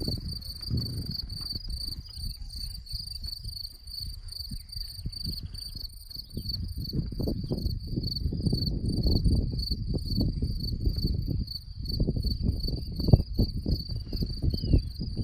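Crickets chirping in a fast, steady high-pitched pulse, with an uneven low rumble of wind buffeting the microphone that comes and goes.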